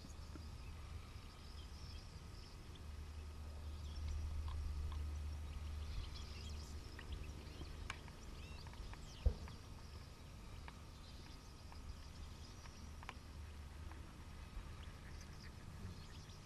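Faint, scattered high twittering calls of a flock of European goldfinches over a low rumble, with one sharp thump about nine seconds in.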